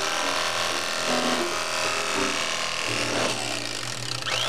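Electric carving knife running, its reciprocating blades sawing through a smoked brisket slice by slice.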